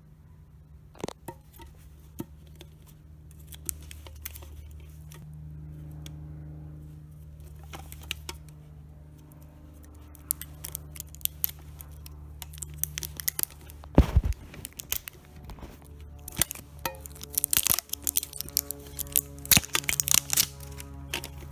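Soft background music of held chords, over the clicks, taps and scrapes of a metal tin being handled. A loud knock comes about two-thirds of the way through, and the clicks and rustles grow dense near the end.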